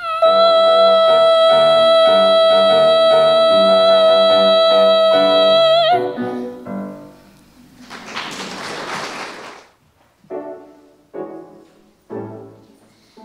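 A girl's solo voice holds one long, steady final note over piano chords, and the piano closes the song about six seconds in. A short burst of applause follows, then a few separate piano chords begin the next song.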